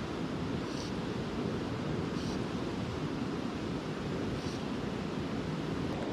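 Steady wind rumble on the microphone outdoors on open water, with no single event standing out.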